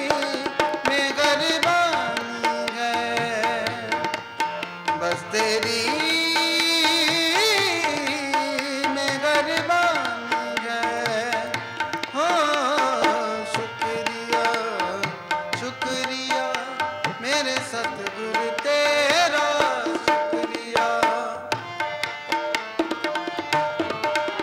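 Devotional song with tabla and harmonium playing. A man's voice sings long, wavering notes in places.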